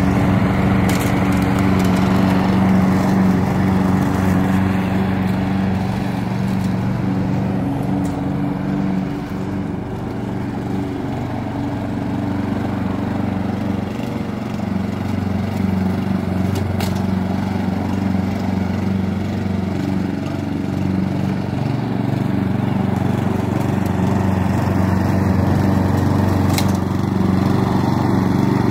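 Lawn mower running steadily through the grass; it grows a little quieter in the middle and louder again near the end.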